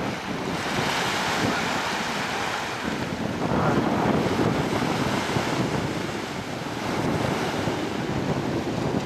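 Wind buffeting the microphone over surf washing on the beach, rising and falling in loudness.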